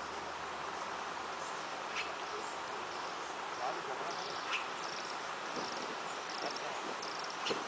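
Outdoor insect noise, a steady hiss with a short high chirp that repeats about twice a second through the second half, and a few faint clicks.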